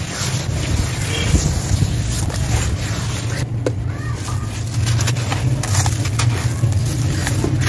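Hands sloshing and squelching wet charcoal mud and water in a plastic basin. Near the end, a dry sand-cement chunk is dipped into the water and crumbles, with gritty crackling and splashing over a steady low rumble.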